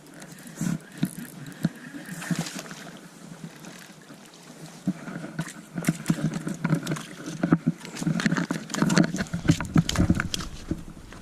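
Hooked bass thrashing and splashing at the water's surface as it is reeled in: irregular splashes and knocks that grow denser and louder in the second half.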